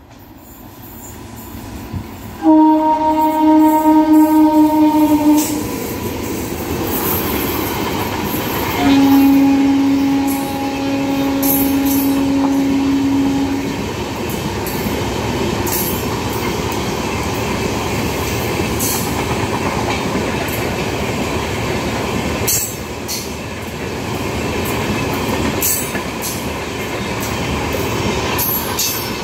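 Indian Railways express train passing at speed. Its locomotive horn sounds twice, a blast of about three seconds and then a longer one of about five seconds. The LHB coaches then rush past with a steady rumble and occasional sharp clacks from the wheels.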